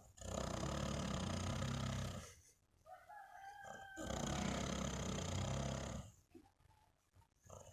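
A person snoring in sleep: two long snores about four seconds apart, each lasting about two seconds. In the quieter gap between them a rooster crows faintly.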